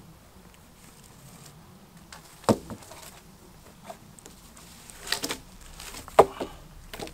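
Wooden poles knocking against each other as they are handled and lifted for a tripod: a sharp knock about two and a half seconds in, a few more around five seconds, and the loudest just after six seconds.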